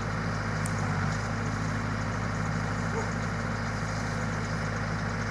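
Case 75XT skid steer loader's diesel engine idling steadily at an even, low speed.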